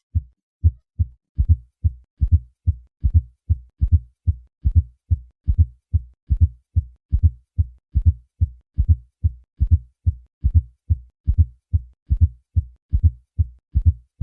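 Heart sounds at the cardiac apex: a steady run of low-pitched thuds in which a fourth heart sound falls just before each first heart sound. Together with the second heart sound this gives a triple rhythm, typical of a stiff, hypertrophied left ventricle in hypertension.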